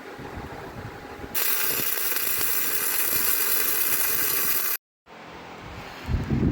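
A welding arc crackling steadily for about three and a half seconds as cracks in a steel engine mount are welded up, then cutting off abruptly. A short, low thump comes near the end.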